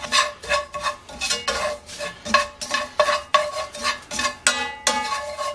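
Metal tongs tossing and scraping panko breadcrumbs around a heavy enamelled pan: quick scraping and clinking strokes, about three a second, each leaving the pan ringing briefly.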